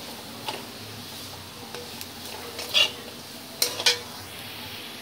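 Potato sticks sizzling gently in mustard oil in a steel kadai on a low flame. A metal spatula scrapes and clinks against the pan a few times, loudest about three and four seconds in.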